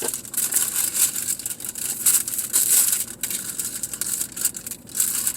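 Takeout food packaging crinkling and rustling in a dense, irregular run of crackles as it is handled and unwrapped.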